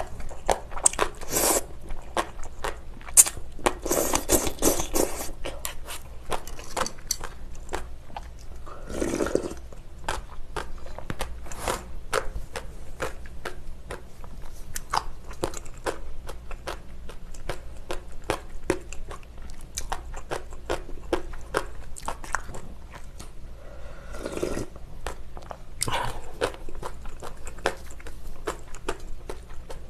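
Slurping and wet chewing of spicy black noodles: several noisy slurps, the longest around four to five seconds in and others near nine and twenty-five seconds, with dense mouth clicks of chewing between them.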